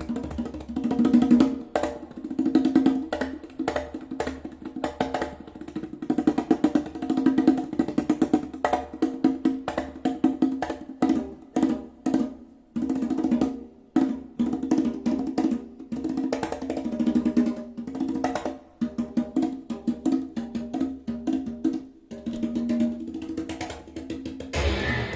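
Percussion music played through hi-fi loudspeakers driven by a Unison Research Unico 50 valve amplifier: a fast, dense rhythm of pitched drum and wood-block-like strikes. It is picked up by a phone's built-in microphone in the room, and a brighter, fuller passage begins near the end.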